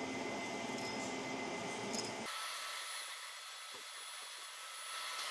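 Steady hiss and hum of the workshop, with a few faint light clicks of small steel valve spring seats being set into their pockets on the aluminium cylinder head.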